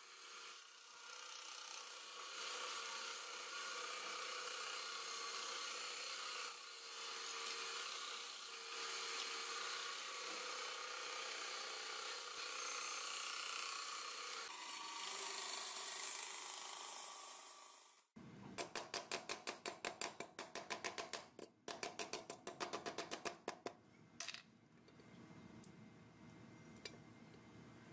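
Bandsaw cutting through an old cleaver's wooden handle, a steady hissing rasp that stops about 18 seconds in. A quick run of short, even strokes follows in two bursts, several a second.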